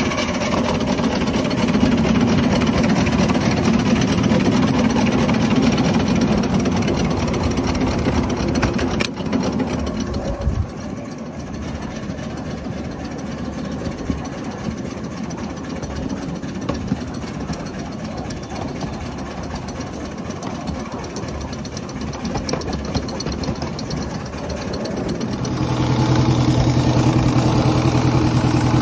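Miniature 7¼-inch gauge steam locomotive running along the track, heard from the driver's seat: a steady fast mechanical rhythm of the engine and wheels. It gets quieter about a third of the way in, then louder again near the end with a steady low hum.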